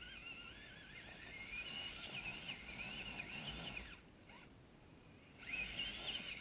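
Electric motor and gear drive of a Traxxas Summit RC crawler whining, its pitch wavering up and down with the throttle as it climbs. The whine cuts out about four seconds in for roughly a second and a half, then picks up again.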